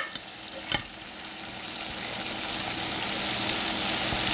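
Sugar syrup of sugar, corn syrup and water at a rolling boil in a stainless steel saucepan: a steady bubbling hiss that slowly grows louder as it cooks toward about 265 degrees. There are two sharp clicks in the first second as a candy thermometer knocks against the pot.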